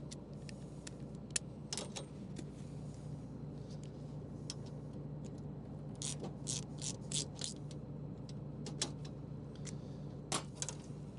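Sharp metallic clicks and clinks of hand tools and a sickle-bar blade as a chipped blade on a combine's cutter bar is unbolted and swapped for a new one, in irregular clusters over a low steady hum.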